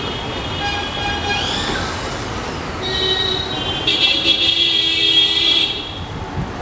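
Street traffic with horns sounding. A shrill horn blares from about four seconds in for about two seconds, over shorter, fainter horn tones before it.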